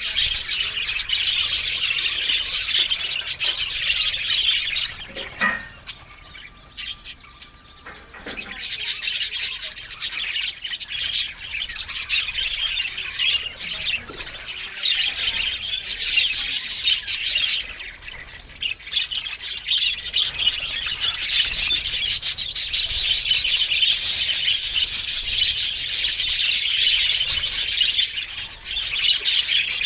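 A colony of budgerigars chattering and chirping continuously in many overlapping voices, with brief lulls about six and eighteen seconds in.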